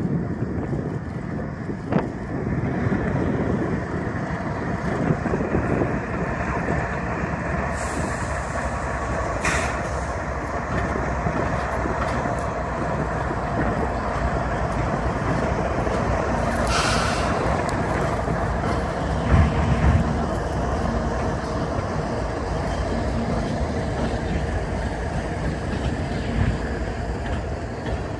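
Freight train passing close by: two Kansas City Southern diesel locomotives run past, followed by covered hopper cars rolling on the rails. It is a steady rumble with a few short hisses.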